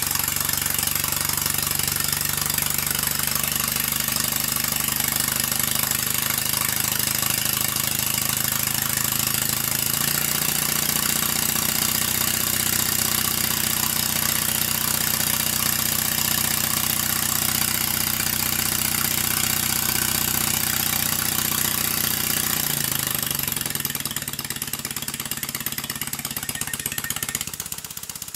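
Stuart Sirius model steam engine running steadily on compressed air, with a hiss of exhaust air. About four-fifths of the way through it slows and grows quieter.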